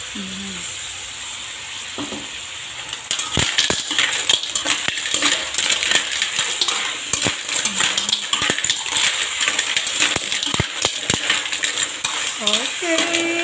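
Clams in their shells sizzling in a wok, then stirred with a metal spatula from about three seconds in: shells clattering and clinking against the pan over the sizzle.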